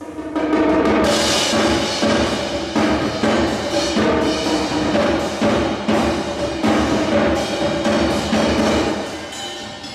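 Percussion ensemble playing a busy rhythmic passage: rapid drum strokes, sharp wood-block-like hits and pitched drum notes. It comes in sharply at the start and eases off a little near the end.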